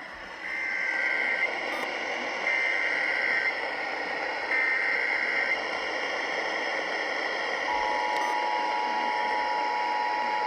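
Emergency Alert System SAME header: three one-second bursts of warbling data tones a second apart, then, about eight seconds in, the steady two-tone attention signal begins, all over a steady hiss. Together they mark the start of a new alert, here a severe thunderstorm warning.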